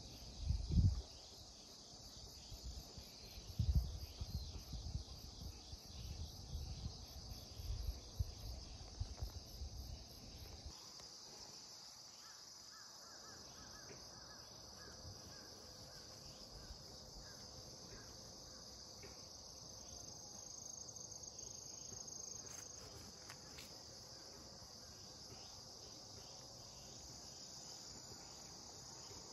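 Crickets chirring steadily in a continuous high trill. Low rumbling buffets hit the microphone during the first ten seconds or so, then stop.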